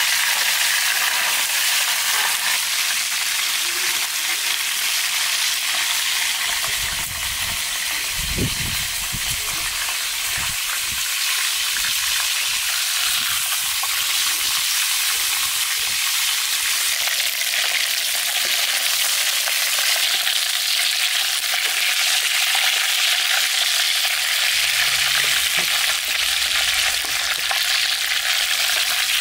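Pieces of bone-in lamb sizzling steadily in hot vegetable oil in a pan, turned over with a wooden spatula.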